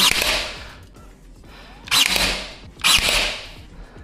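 Pneumatic pin nailer firing three times, each shot a sharp crack followed by a short hiss of exhaust air: at the start, about two seconds in and again a second later.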